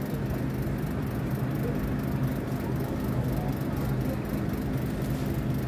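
Steady mechanical hum of a supermarket's refrigerated display cases: a constant low drone with a few steady tones, under an even hiss.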